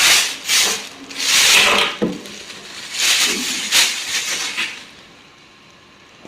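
Dust cover being pulled over a sewing machine, rustling in several quick swishes, which stop about five seconds in.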